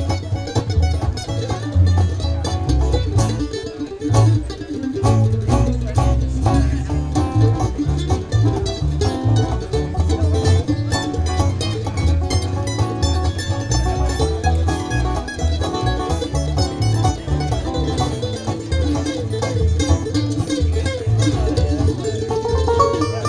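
Bluegrass band playing: banjo, mandolin, acoustic guitars and upright bass with a steady, even beat.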